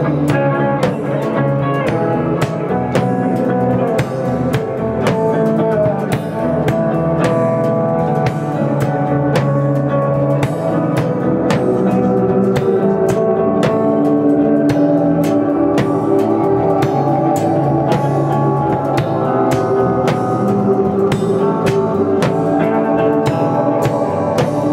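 Improvised instrumental jam: a drum kit keeps up frequent hits under layered, held guitar and synthesizer notes that change slowly, at a steady loud level.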